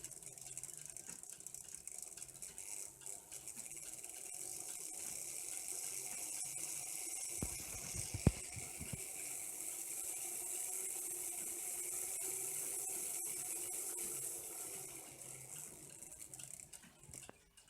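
Märklin 3000 model locomotive's electric motor and gears running with a steady whirr, getting louder and a little higher about four seconds in and dying away near the end. A single knock about eight seconds in.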